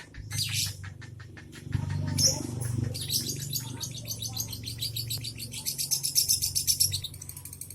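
Young lovebird's ngekek: scattered high chirps, then from about three seconds in a fast, unbroken string of high chirps with only tight pauses, running until near the end. A steady low hum sits underneath.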